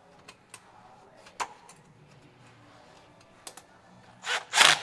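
Metal hose fittings and clamp being handled by hand: a few light clicks and taps, then near the end loud, rapid rasping strokes begin.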